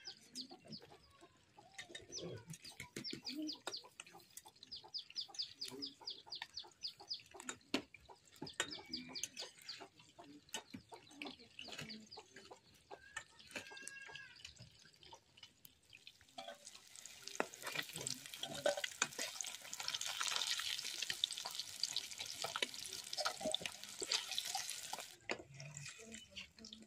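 Fish frying in hot oil in an aluminium kadai over a wood fire, stirred with a metal spatula. The sizzling swells into a louder, steady hiss from about two-thirds of the way in and cuts off shortly before the end. Earlier, chickens cluck, with a quick run of chirps and then a single rising-and-falling call.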